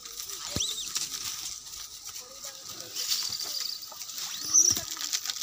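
A troop of grey langurs scrambling over a man and a plastic chair, with scuffling and rustling and a few short high squeals; the loudest squeal comes about four and a half seconds in.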